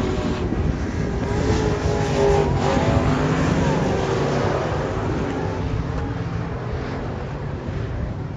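A pack of dirt-track race cars running together around the oval. Several engines are heard at once, their pitch rising and falling through the turn.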